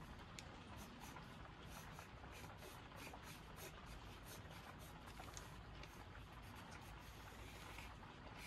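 Soft 9B graphite pencil scratching on paper in short, quick, irregular strokes as wood-grain marks are drawn.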